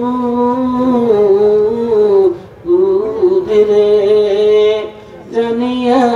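A man chanting a Bengali Islamic supplication (munajat) in long, drawn-out sung notes, pausing twice for breath.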